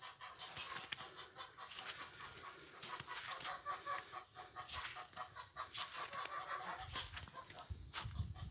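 Chickens clucking in short, irregular calls, with a low rumble coming in near the end.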